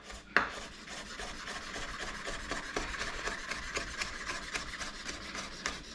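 A knife cutting bacon on a wooden cutting board, a steady run of quick rasping strokes that starts with a knock.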